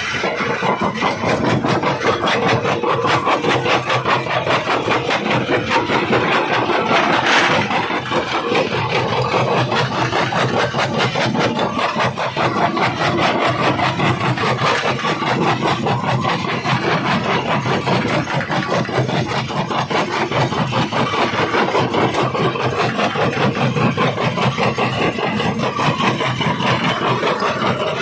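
Jaw rock crusher running, breaking and grinding stone in a continuous, rapid crackle over the steady sound of the machine.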